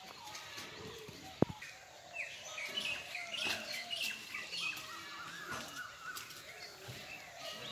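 Several birds chirping and calling, many short calls overlapping. One sharp click sounds about a second and a half in.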